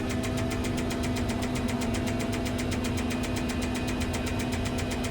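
Truck crane's diesel engine idling steadily, a constant hum with a fast, even clatter.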